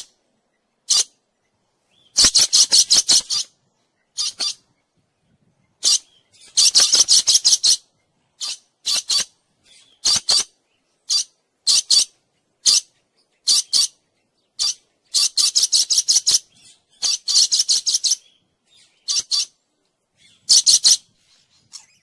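Dusky lories calling with shrill, high-pitched screeches, some single and short, others in rapid stuttering runs lasting about a second, with silent gaps between.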